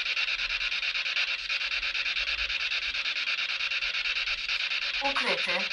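Steady rasping static hiss from a spirit-box radio sweep, flickering rapidly. A brief voice-like fragment comes through about five seconds in.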